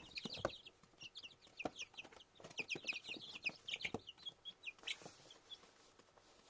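A group of young chicks peeping: many short, high-pitched peeps in quick succession that thin out toward the end, with a few sharp knocks among them.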